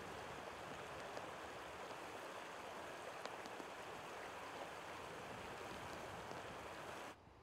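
Shallow mountain stream rushing over rocks: a steady, even wash of running water that stops abruptly near the end.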